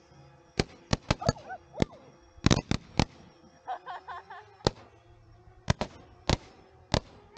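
Consumer fireworks going off: a string of sharp cracks and bangs at uneven spacing, some in quick pairs and clusters.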